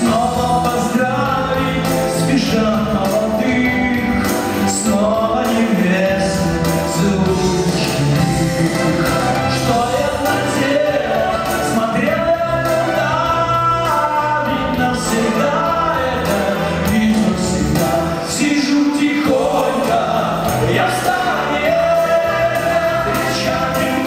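A vocal-instrumental ensemble performing a song live: a male lead vocal with group harmony vocals over electric guitars, bass guitar and keyboard, playing continuously.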